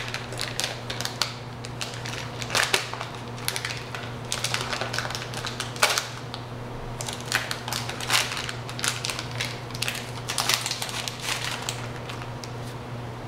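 Clear plastic packaging being pulled and torn open by hand: an irregular run of crinkles and crackles with a few sharper snaps.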